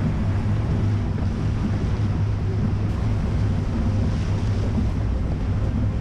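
Nissan X-Trail's engine running at a steady low drone while the car drives through shallow river water, the tyres splashing and swishing through it, with wind on the microphone. The splashing swells briefly about four seconds in.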